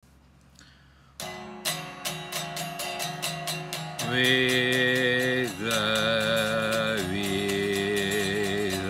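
Electric guitar strummed in a quick, steady rhythm, starting about a second in. From about four seconds in, a man sings long held notes over it.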